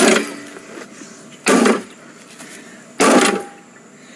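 Three loud, heavy blows about a second and a half apart as a lawnmower is smashed, each a short knock with a brief ring.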